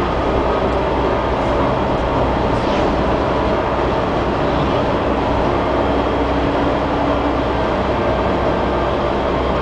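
Car's engine and tyres running steadily at cruising speed, heard inside the cabin: a constant low hum under a spread of road noise.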